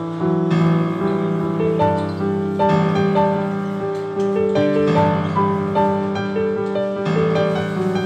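Background music: piano or electric keyboard playing a slow melody over sustained chords.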